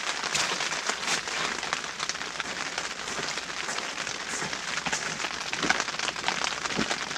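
Light precipitation pattering steadily on the fabric of an ice-fishing tent: a dense, even crackle of countless tiny taps.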